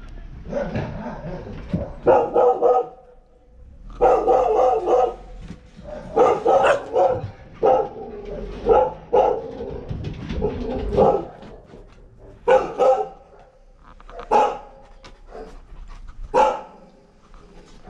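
Canine vocalizing: clusters of pitched yips and whines, followed in the second half by single short, sharp barks a second or two apart.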